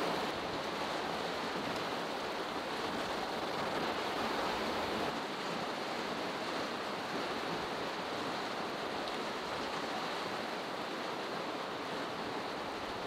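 Steady rushing of a fast mountain river.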